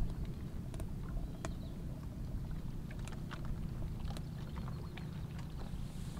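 Wood fire crackling inside a freshly built mud stove: irregular sharp pops and clicks over a steady low rumble.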